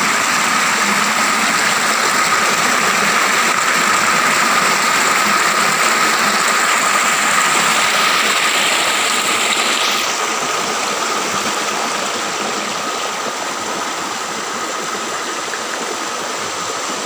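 Fast, turbulent river water rushing over rocks: a loud, steady rush that eases slightly after about ten seconds, with a steady high-pitched whine over it.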